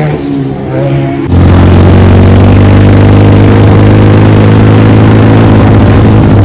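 Motorcycle engine with a loud aftermarket exhaust. After a brief dip in which its pitch falls, the engine comes in suddenly and loud about a second in and holds a steady drone.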